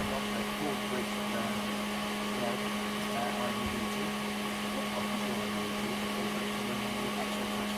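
Steady hum and whirring from running workshop electrical equipment, one low tone held unchanged throughout.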